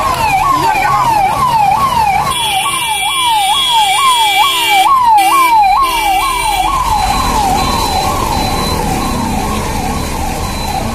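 Ambulance siren wailing up and down fast, about two cycles a second, and growing fainter in the last few seconds. Another steady tone sounds over it for a few seconds in the middle.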